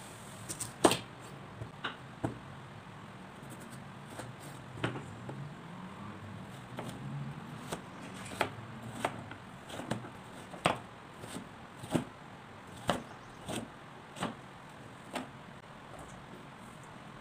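Chef's knife cutting through a raw carrot onto a wooden cutting board: a series of sharp knocks, scattered at first, then settling into a steady chop about every two-thirds of a second from about eight seconds in.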